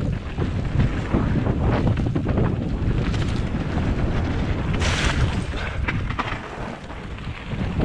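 Wind buffeting the bike-mounted camera's microphone over the rumble and rattle of a mountain bike riding a frozen forest trail, with a short hissing scrape about five seconds in.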